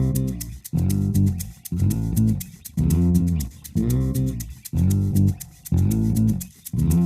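Background music: plucked guitar and bass notes pulsing about once a second over a quick, light percussion tick.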